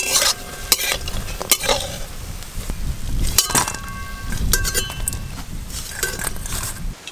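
A metal spatula knocking and scraping in a wok as prawn fritters are turned and lifted out of sizzling mustard oil. In the middle come several ringing metallic clinks as the fritters are dropped into a steel bowl.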